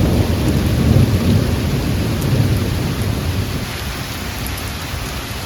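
Heavy rain pouring down, with a deep low rumble that is loudest at the start and fades over the next few seconds.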